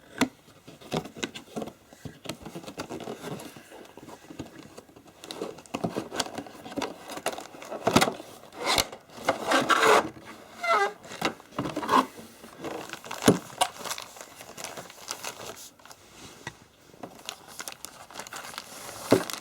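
A retail box and its packaging being opened and handled: irregular crinkling, tearing and scraping, with scattered sharp knocks.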